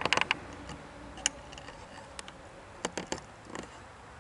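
Scattered sharp clicks: a quick cluster at the start, single clicks about one and two seconds in, and another short cluster about three seconds in.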